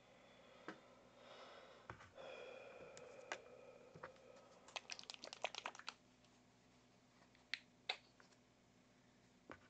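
Faint clicks and soft rustling of a plastic acrylic paint bottle being handled on the work table, with a quick run of about ten small ticks around the middle and a few single clicks after.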